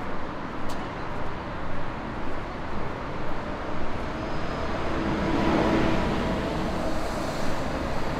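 City street traffic running steadily, with one vehicle passing close and swelling up and away about five to seven seconds in.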